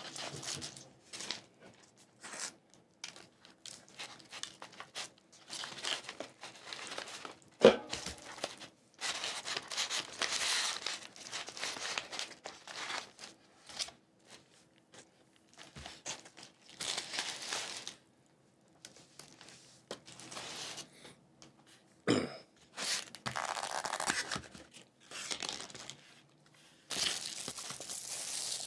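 Paper food wrappers and packaging rustling, crinkling and tearing in on-and-off bursts as food is unwrapped and handled, with a sharp knock about a quarter of the way through and a smaller one later.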